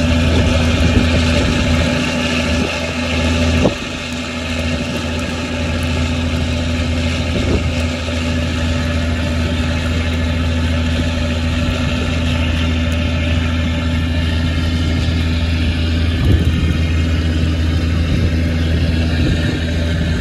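A fishing trawler's inboard engine running at a steady speed, a constant low drone with hiss above it, and a brief knock about four seconds in.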